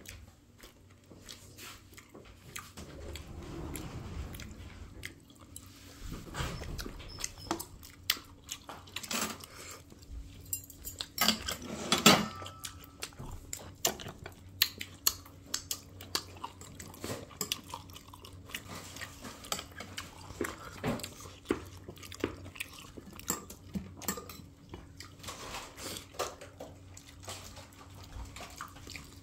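Stainless steel chopsticks and spoons clicking and clinking against ceramic plates and bowls while people eat, in irregular scattered taps, with a louder clatter about twelve seconds in.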